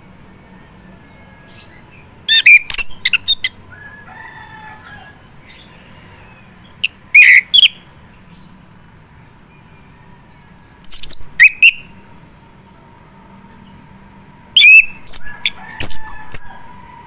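Male chestnut-capped thrush singing in full voice: four short bursts of quick, high, chirping phrases a few seconds apart, the last the longest.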